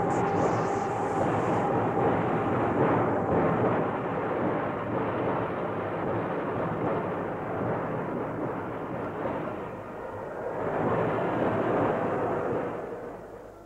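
A loud, rushing, rumbling noise from a TV sound effect that accompanies spell-casting. It swells twice and fades out near the end.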